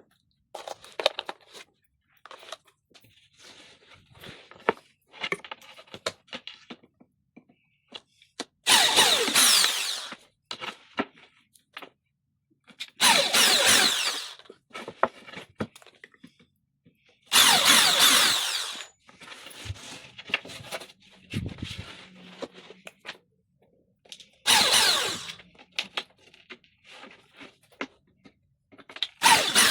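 Power drill run in five short bursts of about a second each, spaced several seconds apart, with light clicks and knocks of handling between them.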